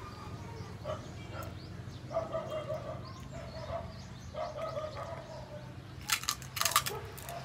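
A bird calls twice in the background, each a held note of about a second, over a steady low hum. Near the end comes a short burst of loud crunching as crispy lechon (roast pork) is bitten and chewed.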